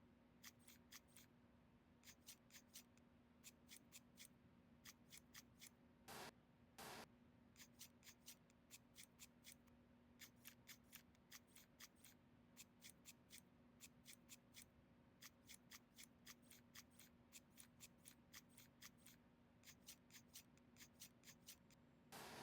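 Faint runs of quick, light clicks, several a second, from hand work on PC parts during assembly, with two short rustles about six and seven seconds in and a faint steady hum underneath.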